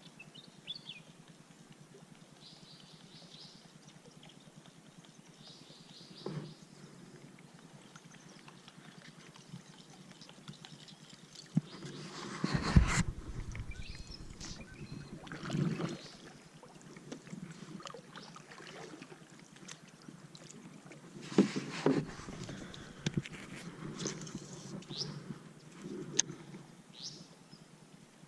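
Quiet river ambience with faint bird chirps, broken twice, about halfway in and again later, by louder bouts of splashing and knocks around the kayak.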